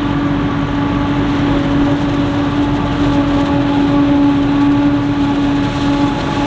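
Maize-harvesting machinery running steadily: a heavy engine drone with a constant whine held at one pitch throughout.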